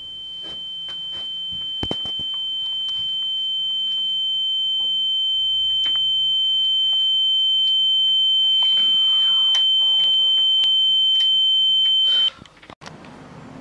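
A steady high-pitched electronic ringing tone, added as a shock effect, swelling louder over the first eight seconds or so and cutting off suddenly about twelve seconds in.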